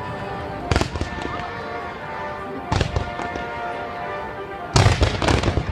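Fireworks bursting overhead: one sharp bang about a second in, another near the three-second mark, and a quick cluster of bangs near the end, with music playing underneath throughout.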